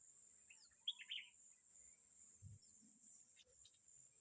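Faint insect chirping: a steady, high, evenly pulsing trill, about four pulses a second. A short bird chirp sounds about a second in.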